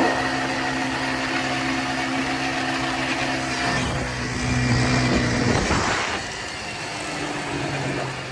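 Off-road vehicle engine running at a steady speed while riding a trail. A louder, rougher rush of noise rises about four seconds in and fades by six, and the engine runs quieter after that.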